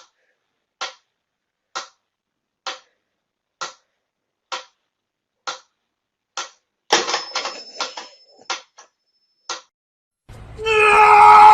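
Sharp ticks evenly spaced about one a second, like a clock, over silence, with a brief cluster of rattling clicks about seven seconds in. Near the end a loud, steady sound with several pitches starts abruptly.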